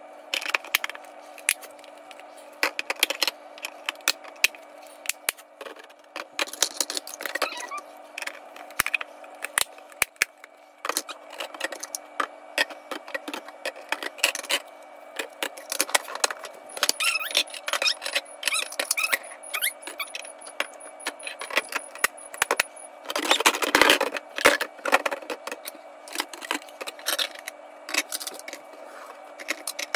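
Food storage containers and their snap-lock plastic lids being handled and stacked on a countertop: repeated clinks, clacks and knocks, with a louder stretch of rattling and scraping about three-quarters of the way through. A steady low hum lies under it all.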